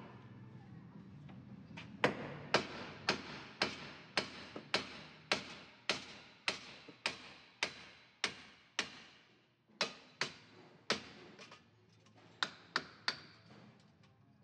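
A series of sharp metallic clicks from hand-tool work on a rusty wheel hub bearing assembly, evenly spaced at about two a second, then a few more at uneven gaps near the end.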